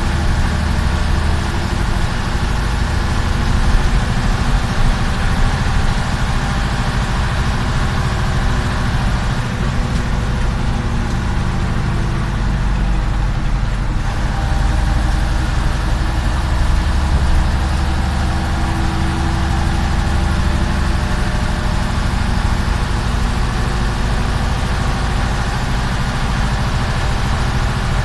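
Jelcz 043 bus's diesel engine running steadily while the bus drives at road speed, heard from inside the cab with tyre and road noise. The low drone swells a little partway through.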